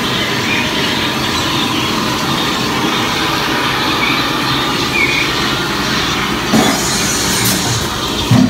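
Loud, steady rumbling and rattling like a subway train running on rails, from the earthquake dark ride's effects and moving ride car, with a couple of short thumps near the end.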